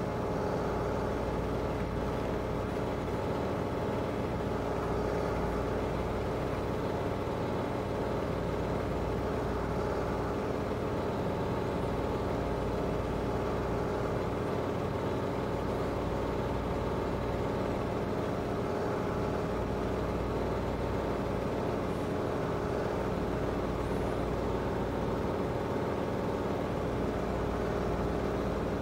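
A steady mechanical hum from a running machine, a constant droning tone over a low rumble that does not change.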